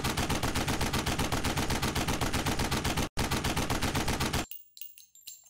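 Rapid automatic gunfire, about ten shots a second, with one brief break partway through, cutting off abruptly about four and a half seconds in.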